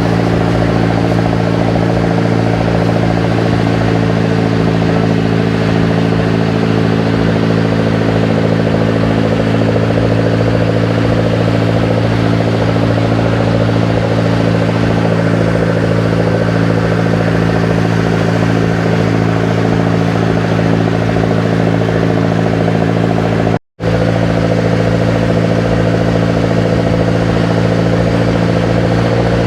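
Engine of a motorized outrigger boat (bangka) running at a steady speed, a loud, unchanging drone. The sound cuts out for an instant about 24 seconds in.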